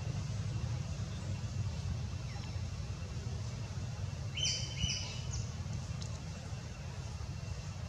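Outdoor ambience: a steady low rumble throughout, with two short, high chirps about four and a half seconds in.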